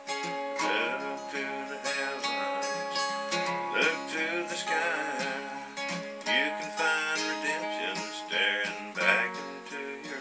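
Steel-string acoustic guitar playing an instrumental solo: a quick run of picked single notes over ringing chords, with several notes bent and wavering in pitch.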